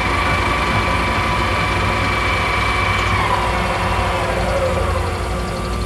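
Metal lathe spinning a shaft in its chuck with a steady whine, then slowing down about three seconds in: the whine falls in pitch as the spindle coasts toward a stop, over a steady low hum.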